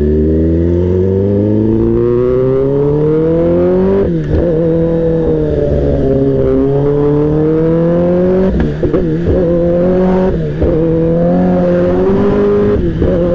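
Kawasaki ZX-10R inline-four engine accelerating under way, heard from the bike. Its exhaust note climbs in pitch for about four seconds, drops sharply at an upshift, then climbs more slowly to a steady cruise, with a few brief dips in the note later on. The exhaust is loud because its dB killer has been removed.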